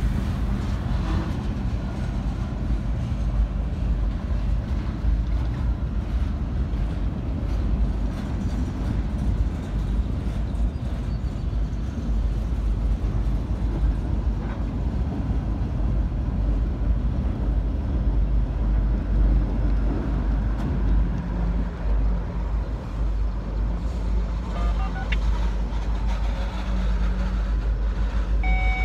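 Freight cars of a long mixed freight train rolling past below, a steady low rumble of steel wheels on rail.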